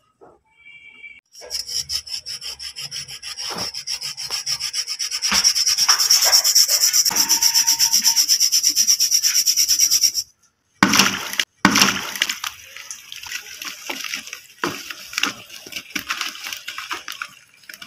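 Soaked brick lumps rubbed and ground against each other by hand, a fast, even scraping that grows louder about five seconds in and cuts off about ten seconds in. Then wet brick is crumbled and squeezed in a tub of muddy water, with irregular crunches and splashes.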